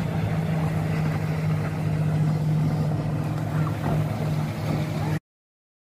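Motorboat engine running steadily with a low, even hum that cuts off abruptly about five seconds in.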